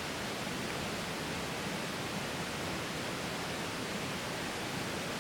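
Steady rush of a mountain stream's flowing water, an even hiss that neither rises nor falls.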